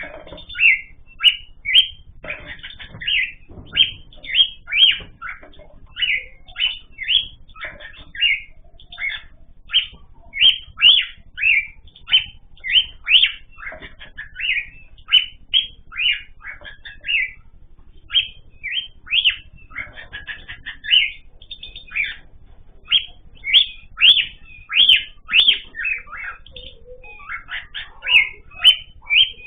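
Cage birds calling: short, sharp chirping calls repeated about twice a second without a break.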